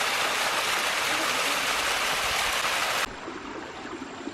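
Rushing water: a loud, even hiss that cuts off suddenly about three seconds in, leaving a much quieter steady background.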